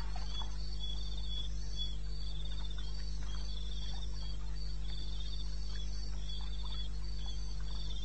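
Several crickets chirping: overlapping high-pitched pulsed trills, each burst repeating every second or so, over a steady low hum.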